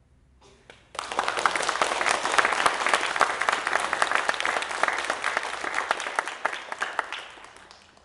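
Audience applauding. The clapping breaks out about a second in, holds steady, and dies away near the end.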